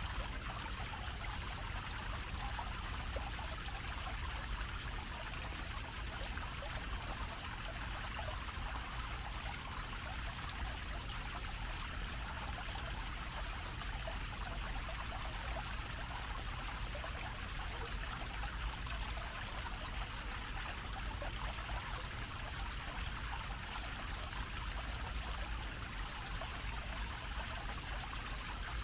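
Fountain's low dome-shaped jet of water splashing steadily into its pool, an even continuous rush with a low steady rumble beneath it.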